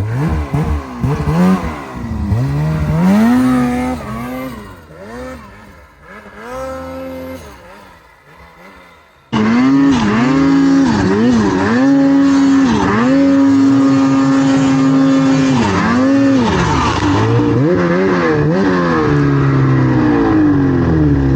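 Snowmobile engine revving up and down as the throttle is worked on and off, fading into the distance over the first nine seconds. About nine seconds in, it cuts suddenly to a much louder, closer snowmobile engine held high, with brief drops and climbs in revs.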